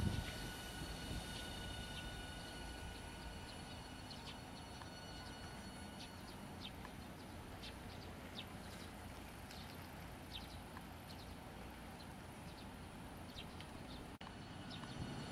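Quiet street ambience: a faint low rumble and a faint steady high whine from a low-floor tram moving slowly along a street track, with scattered short high chirps of small birds.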